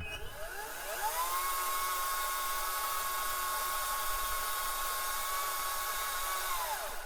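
Chainsaw revving up to full throttle about a second in, held at a steady high whine while cutting through a long tree branch, then dropping off just before the end.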